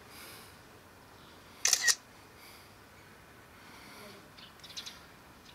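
A camera shutter clicks once, a sharp double click about two seconds in. Near the end come a few faint scratchy ticks as a fennec fox's claws scrabble at a dry tree stump.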